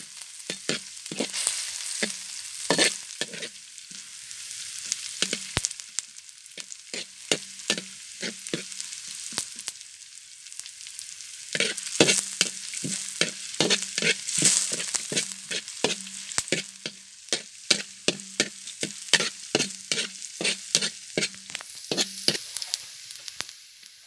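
Minced garlic, chili and sliced lemongrass sizzling in hot oil in a wok, with a metal spatula scraping and clacking against the pan as they are stir-fried. The clacks come in quick irregular runs with short pauses between them.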